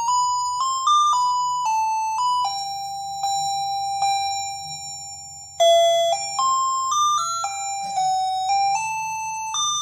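A simple electronic tune in a thin, chime-like tone, played one note at a time and stepping up and down, each note fading after it starts and one note held for about three seconds in the middle.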